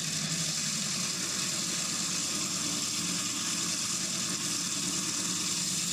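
Water-cooled Gryphon diamond bandsaw running steadily while its blade cuts through an acanthastrea coral skeleton: a steady motor hum under a continuous high grinding hiss.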